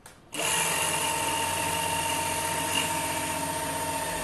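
A 775 DC hobby motor driving a belt-driven drill spindle with a 3 mm drill starts about a third of a second in. It then runs at a steady speed on 16 volts, with an even whine.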